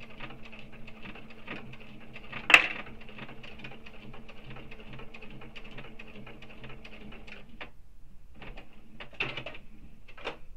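Sewing machine stitching a long topstitch seam at a steady pace, its needle ticking about six times a second over a steady motor hum, with one sharp click about two and a half seconds in. The machine stops about three-quarters through, and a few softer clicks follow.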